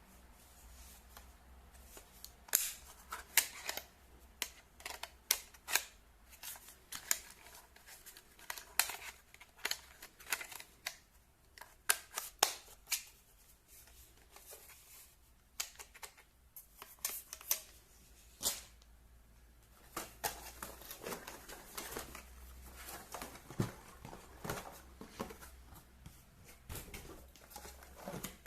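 Unboxing handling: irregular clicks, taps and rustles of packaging and plastic parts being handled, some sharp and loud.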